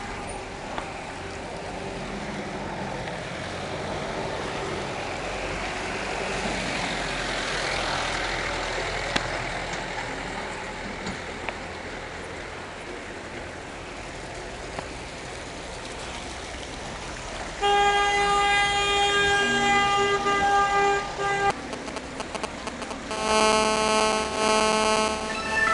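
Steady road noise of a vehicle driving along a wet, muddy street. Then two long car-horn blasts: one held about four seconds, starting roughly two-thirds of the way in, and a second, loud, rich-toned blast near the end.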